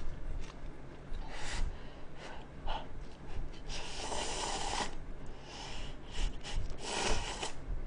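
A person slurping instant ramen noodles from a cup: a few short slurps and one longer one about four seconds in.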